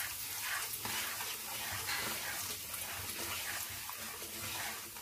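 Ginger-garlic paste and ground spices sizzling in hot oil in a pan while being stirred with a wooden spoon: a steady sizzle with soft scrapes of the spoon.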